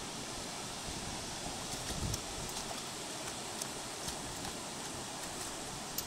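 A dog swimming, paddling with a few small sharp splashes, over a steady rushing hiss.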